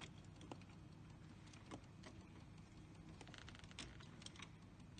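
Faint, scattered small clicks and light rattles from hands working at a car's steering column and under the dashboard.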